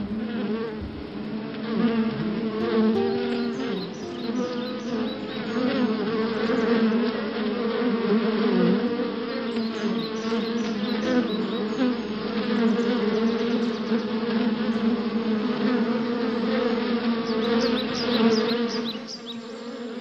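Many honeybees buzzing around their hive: a dense, steady hum that wavers slightly in pitch.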